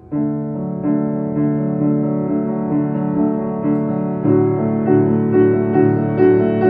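Background piano music entering suddenly, with new notes struck about twice a second; a fuller, lower part joins about four seconds in.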